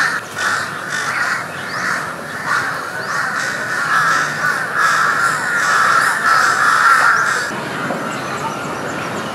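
Crows cawing, many calls overlapping into a continuous chatter that stops about three-quarters of the way through.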